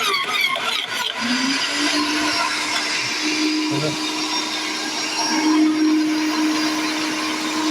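Sun Joe electric wood chipper. For about the first second, branches crackle and rattle as they are chewed. Then the motor's hum rises slightly in pitch and holds steady as it runs unloaded.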